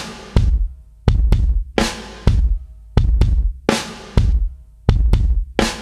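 Background music with a steady drum beat: heavy bass-drum and snare hits repeating about every half second to second.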